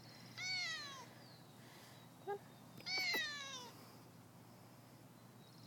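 A cat meows twice, about two and a half seconds apart; each meow is a high call that falls in pitch.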